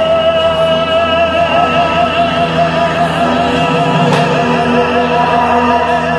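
Sichuan opera music playing, with a long held note that wavers in pitch over a steady accompaniment, and one sharp click about four seconds in.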